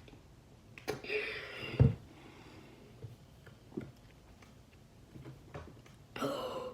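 A person breathing out hard through the mouth twice, about a second in and again near the end, with a sharp low thump just before two seconds in.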